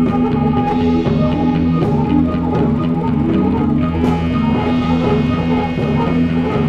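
Rock music with guitar and drums, a dense repeating pattern of sustained notes at an even, full level.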